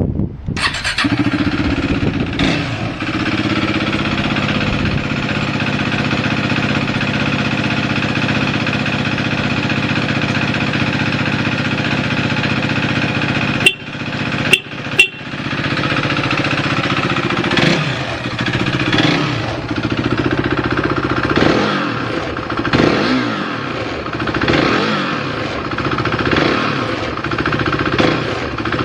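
KTM RC390's single-cylinder engine starts on the electric starter about a second in, then idles steadily. Around the middle a few sharp clicks break in. From there on the throttle is blipped repeatedly, the revs rising and falling.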